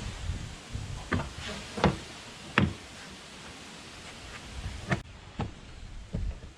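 Irregular sharp knocks and clicks of hands and tools working on the handle linkage and clips inside a pickup truck's door, six or so in all.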